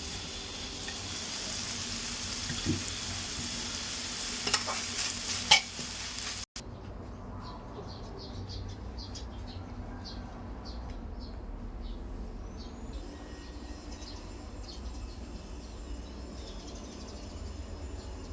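Food sizzling as it fries in a pan, with a few sharp clinks of a utensil against the pan. About six seconds in the sizzle cuts off, leaving a quieter stretch with faint scattered ticks.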